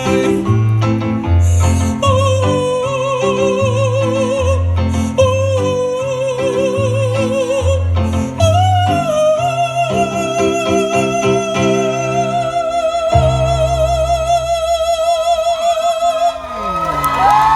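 A woman holding long sung notes with wide vibrato in an operatic style over a backing track with a pulsing bass line. The final note is held for about eight seconds. When the music cuts off near the end, the crowd cheers and whistles.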